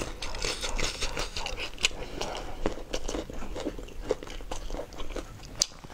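Close-miked eating sounds from braised lamb shank being pulled apart with plastic-gloved hands and chewed: an irregular run of wet clicks and crunches.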